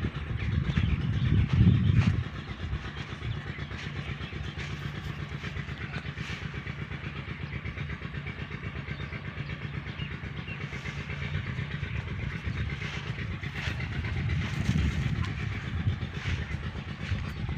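A running engine, a steady low hum with rapid even pulsing; louder for about the first two seconds, then quieter, and swelling again near the end.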